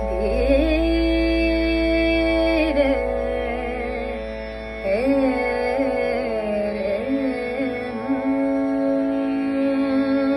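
Woman singing slow, ornamented opening phrases of a Marathi Natyasangeet in Raag Yaman over a steady drone, with long held notes and glides between them. A new phrase begins about five seconds in, and a long held note starts near the end.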